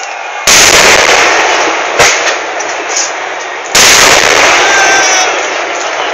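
Kerala temple-festival fireworks (vedikkettu) going off, very loud: two heavy blasts about three seconds apart, each a dense burst of noise lasting over a second before dying away, and a single sharp bang between them.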